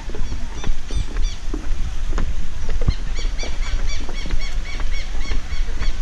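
Footsteps knocking on the planks of a wooden boardwalk over a low rumble of wind on the microphone. From about halfway through, a bird chirps in a quick, regular series, about three or four calls a second.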